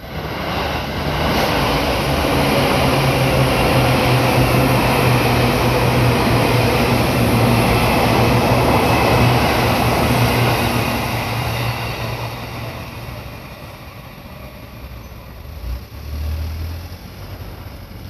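Seibu electric commuter train passing over a level crossing: the rumble of wheels on rail with a steady low hum builds quickly, holds loud for about ten seconds, then fades as the train runs off. A short low thump comes near the end.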